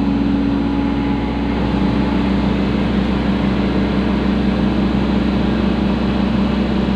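Excavator's diesel engine running steadily, a constant hum.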